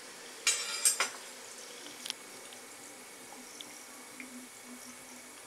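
Whole cinnamon, cloves and cardamom frying gently in ghee in a kadai, with a short burst of crackling about half a second in and a few sharp pops, the last about two seconds in.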